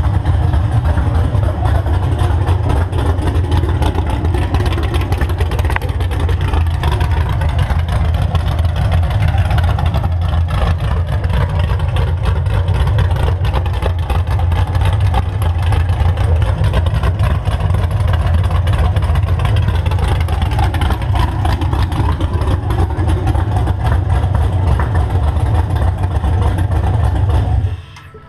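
Chevrolet 5.3L LS V8 with a TSP 220R cam running steadily at idle on an engine stand through open long-tube headers with no exhaust attached. It stops abruptly near the end.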